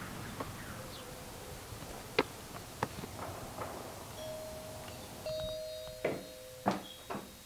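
Doorbell chiming two steady tones, the second coming in about a second after the first. A few sharp clicks come before the chime and a few sharp knocks near the end.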